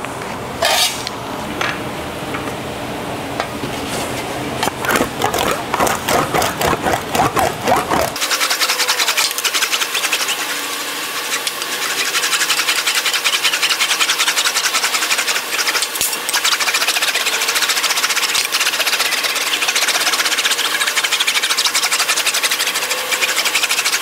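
Sheet-metal patch panel being rolled back and forth through an English wheel, smoothing out the hammer marks in the panel: a steady, dense, rapid rattle of steel on the wheels from about eight seconds in. Before that come uneven knocks and clatter.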